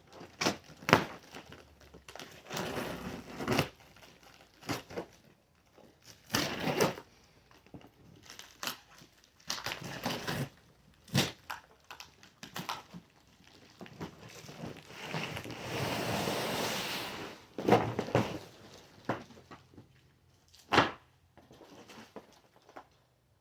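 Cardboard shipping box and packaging being handled: scattered knocks and thuds, crinkling, and a steady rasping tear about two and a half seconds long around the middle.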